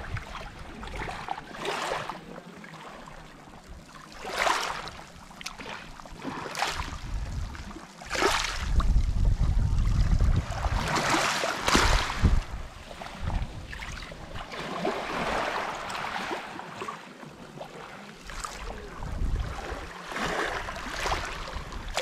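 Small sea waves lapping in and out over a pebble shore, one wash swelling and fading every couple of seconds. A low rumble on the microphone runs through the loudest stretch, about 8 to 12 seconds in.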